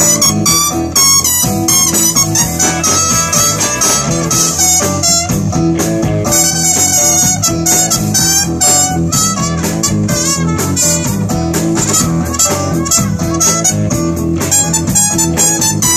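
Live blues band playing loudly, with a horn section, electric guitar and drum kit keeping a steady beat.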